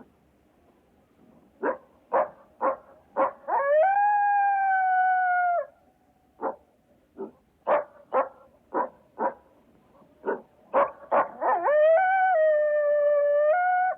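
Coyote bark-howling: a run of short, sharp barks rising into a long, held howl that sags slightly at the end. The sequence comes twice, the second run of barks longer.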